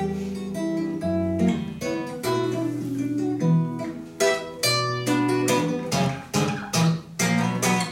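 Acoustic guitar playing the closing instrumental bars of a song: picked melody notes over ringing bass notes, then a run of sharp strummed chords in the second half that stops near the end.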